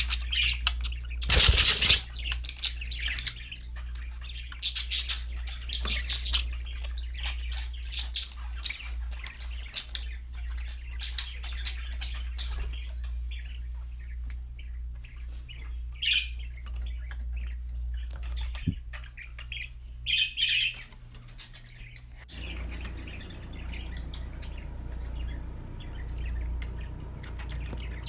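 Pet budgerigars chirping and squawking in short, scattered calls, with one loud brief burst about a second and a half in. A steady low hum runs underneath.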